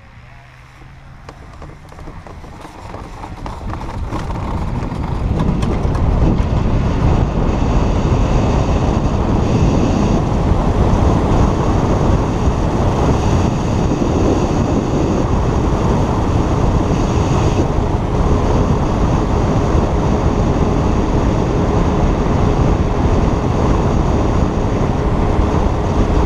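Wind rushing over a hang glider's wing-mounted camera microphone, building over the first five or six seconds as the glider speeds up on its launch dolly and lifts off, then holding steady and loud in flight.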